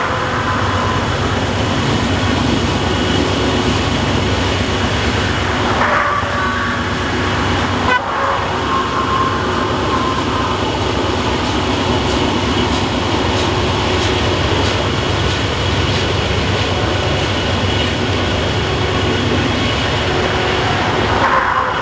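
Long freight train of covered gondola cars rolling past in a steady rumble. Wheels click over rail joints in the latter half, and brief high squeals come now and then.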